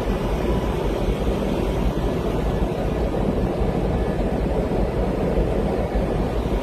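Steady low rumble and rushing noise on board a moving boat: the boat's engine blended with wind on the microphone.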